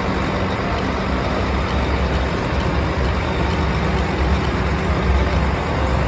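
Volvo concrete mixer truck's diesel engine running steadily at a standstill, a deep, evenly pulsing note.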